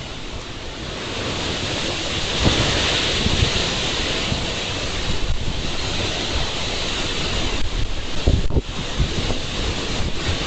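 Strong wind blowing in gusts with a steady rushing hiss, buffeting the microphone with uneven low rumbles.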